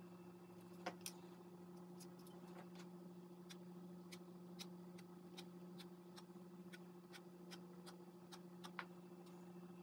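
Near silence: a steady low hum with faint, irregular clicks scattered throughout, the clearest about a second in and near the end.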